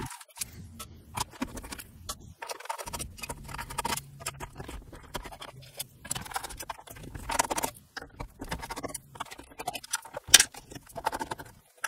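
A screwdriver backing screws out of an Atari 800's case and metal shielding: small, scattered metallic clicks, ticks and scrapes from the driver tip and the loosened screws, with a sharper click about ten seconds in.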